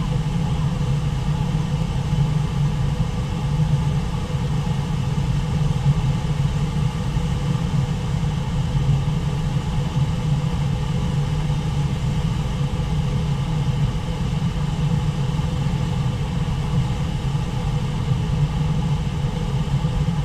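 Waterfall rushing, a steady low rumble of falling water that never lets up.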